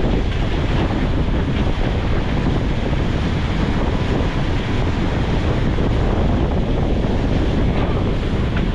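Steady rush of wind buffeting the microphone over the churning wake of an outboard-powered boat running at speed.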